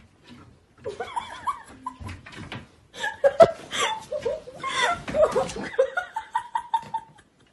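Hearty human laughter in quick bursts, with one sharp knock about three and a half seconds in.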